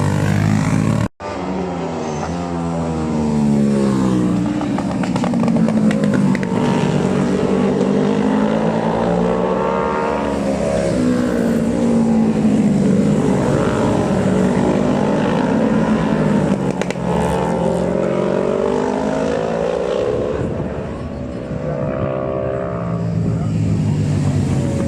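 Road-racing motorcycles at full race speed, engines revving up and dropping repeatedly through gear changes as several bikes pass in succession. The sound cuts out briefly about a second in.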